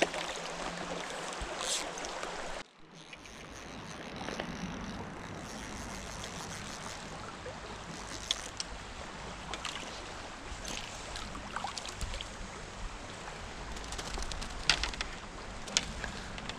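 Shallow river current rushing steadily around the wading angler, with scattered small clicks and knocks. There is a brief break about three seconds in.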